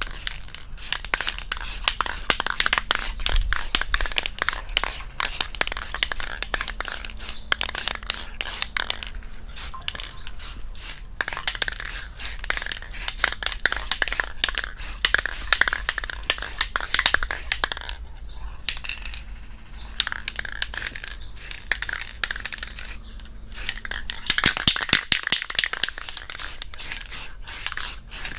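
Aerosol can of flat maroon spray paint being sprayed in short hissing bursts, with the mixing ball rattling, dusting a light guide coat over body filler ahead of block sanding.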